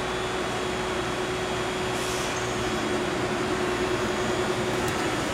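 Steady machine hum with one constant mid-pitched tone under an even noise, and a faint brief hiss about two seconds in.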